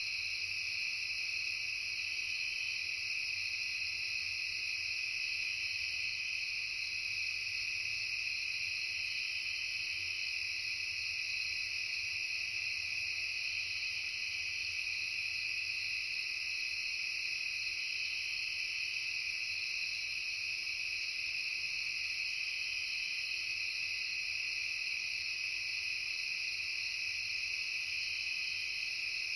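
Steady chorus of crickets and other insects, several high pitches sounding at once without a break.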